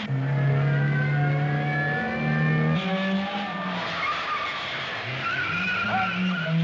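Car chase: a Ford Capri Mk1 and a police Alfa Romeo Giulia TI with engines running hard and tyres squealing through the turns. The engine note holds steady at first and shifts pitch a little under three seconds in.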